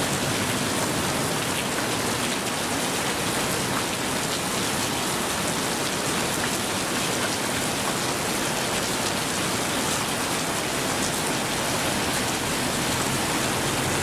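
Steady rain falling, an even hiss of raindrops on surfaces throughout.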